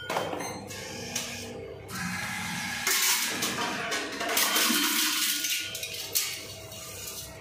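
Reverse vending machine taking in and sorting an aluminium can: its mechanism whirs and rushes in stretches, with a few sharp knocks about three and six seconds in.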